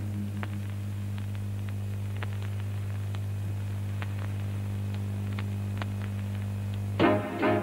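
Steady low electrical mains hum with scattered faint clicks, in a gap in the music soundtrack. Music starts again near the end.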